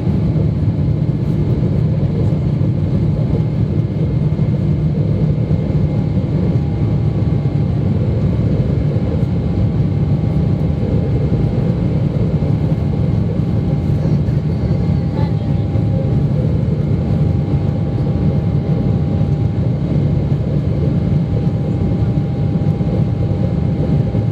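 Steady engine and airflow noise inside the cabin of a Boeing 777-300ER with GE90 engines under thrust after takeoff: a constant low rumble with a faint steady hum above it.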